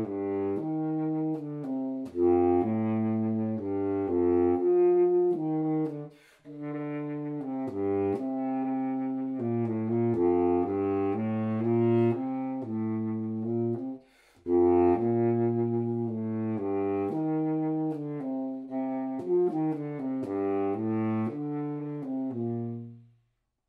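Unaccompanied baritone saxophone playing an etude, a run of separate low notes broken by two short breath pauses, about six and fourteen seconds in. The playing stops just before the end.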